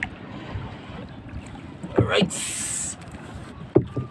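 Water sloshing around a small boat's hull as it comes alongside a moored outrigger bangka, with a sharp knock about two seconds in followed by a short splash, and another knock near the end.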